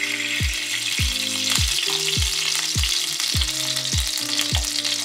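Ghee sizzling steadily as it is poured into a hot pan and spreads. Under it runs background music with a steady low beat about twice a second.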